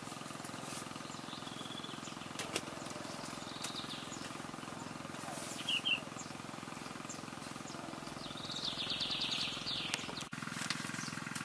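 Steady outdoor background hum with scattered clicks and a few short high chirps, including a rapid high trill about eight and a half seconds in.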